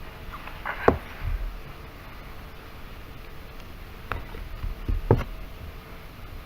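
Handling noise: a few sharp clicks and knocks of small hard objects, about a second in, about four seconds in and once more just after five seconds, with some faint rustling.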